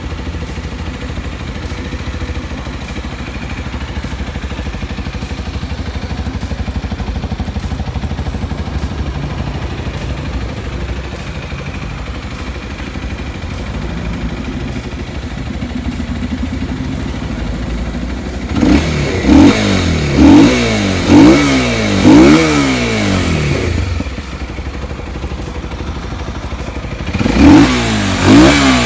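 Kawasaki Z250SL single-cylinder engine, fitted with a modified airbox and exhaust, idling steadily, then blipped by the throttle about once a second, five times, before settling back to idle and revving again near the end. The modified intake and exhaust give it a note that the owner likens to a twin-cylinder.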